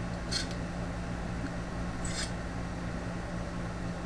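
Two brief, sharp metallic scrapes about a second and a half apart as the stock CPU cooler's metal retention clip is worked onto the tabs of the socket bracket, over a steady low hum.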